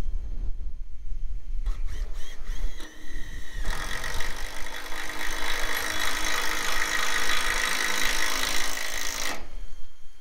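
Cordless drill running steadily for about six seconds, driving a screw into a corrugated steel roof panel, then stopping shortly before the end. Wind rumbles on the microphone throughout.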